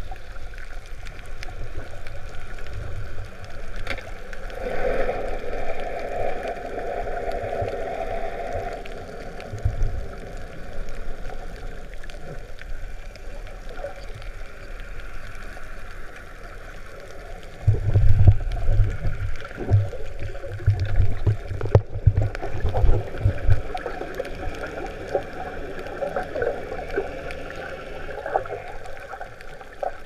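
Muffled water sloshing and gurgling heard through a camera held underwater, with a run of heavy low thumps from about 18 to 23 seconds in.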